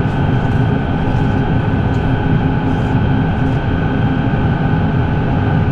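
Steady drone of a Case IH Magnum Rowtrac tractor heard from inside its closed cab as it pulls a sidedresser through the field at working speed.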